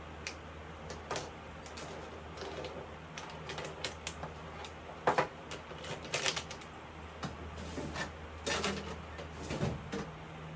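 Irregular light clicks and rustles of objects being handled, the loudest a double click about five seconds in, over the steady low hum of an electric fan.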